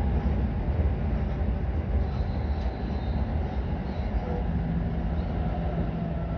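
Train running, heard from inside the passenger carriage: a steady low rumble of the wheels on the track, with a faint steady hum joining a little past halfway.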